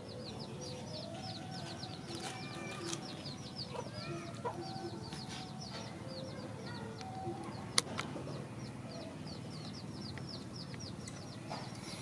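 Chickens clucking, over a steady run of short high chirps repeating several times a second, with one sharp click about eight seconds in.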